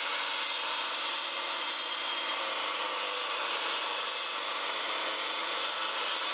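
Bosch sliding mitre saw running with its blade cutting through 18mm MDF, a steady, even saw noise.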